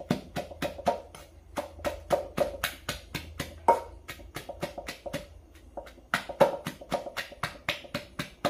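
Wooden pestle pounding chilies, garlic and lemongrass into curry paste in an earthenware mortar, a steady run of knocks about four or five a second with a short ring after each. The strokes soften for a moment just past the middle.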